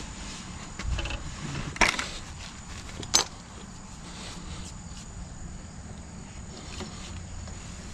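Two sharp metal knocks about a second and a half apart, over a low steady rumble, as a new rear axle seal is being fitted into the axle housing of a 2003 Dodge Ram 1500.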